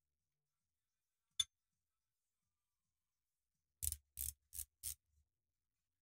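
Hand tools on the cast-iron tailstock of a lathe: one sharp metallic click, then about two and a half seconds later four short metallic scrapes in quick succession as a socket on an extension works inside the tailstock bore.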